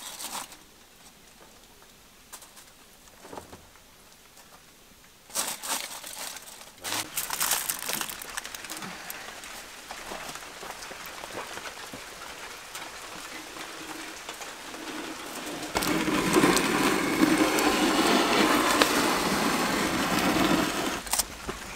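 Aluminium foil crinkling and rustling as a foil-wrapped lamb is handled, then, from about three-quarters of the way through, a wood fire crackling up close inside a brick oven as the parcel is set down by the flames; this fire is the loudest part.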